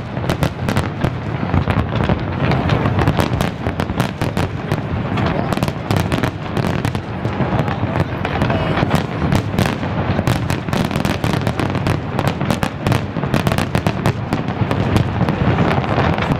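Fireworks display at full barrage: many shells bursting at once, a dense, unbroken run of bangs and crackles.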